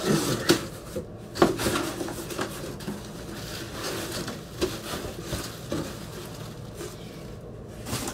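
Cardboard shipping box being handled and opened: rubbing, scraping and a few sharp knocks, busiest in the first two seconds and quieter after about six seconds.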